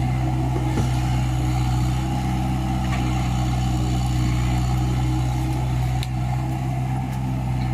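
Engine running steadily at a constant speed, a low even hum with no revving, and a couple of faint clicks.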